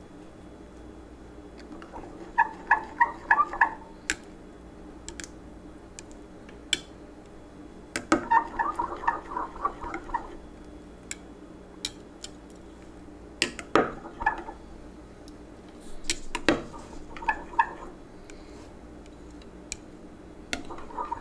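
Metal spatula stirring powdered pearl colorant into liquid plastisol in a glass measuring cup, clinking against the glass in quick runs of rapid taps, with single sharp clicks between the runs. A faint steady hum underneath.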